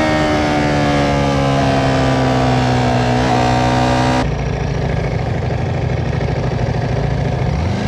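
Ducati Panigale V4 motorcycle's V4 engine on the move, its pitch falling slowly as the bike slows, with wind noise. About four seconds in the sound changes abruptly to a steadier, lower engine drone.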